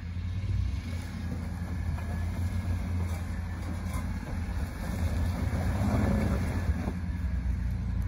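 Land Rover LR3 engine running at low speed as the truck crawls up a rocky off-road gully, growing a little louder past the middle.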